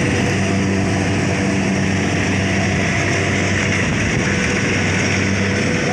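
Rice combine harvester's engine running steadily under load, a continuous even hum with machinery noise over it.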